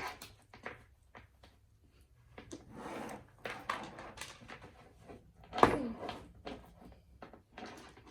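Scattered clicks, taps and rustles of small plastic toys and slime containers being handled on a tabletop, with one louder knock a little past halfway.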